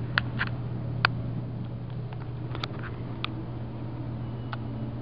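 KONE in-ground hydraulic elevator car in motion, a steady low hum with a few light clicks and rattles scattered through it.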